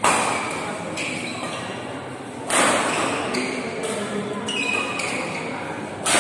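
Badminton rackets striking the shuttlecock during a doubles rally: several sharp hits a second or two apart, the loudest near the start, about halfway through and at the end, echoing in a large hall over a murmur of spectators.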